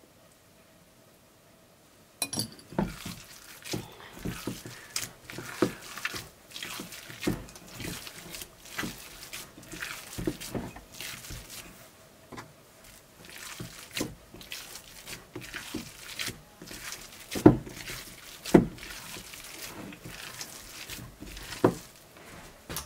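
Hand mixing and squeezing raw minced meat thinned with a little water, in an enamel bowl: irregular wet squelches, several a second, starting about two seconds in.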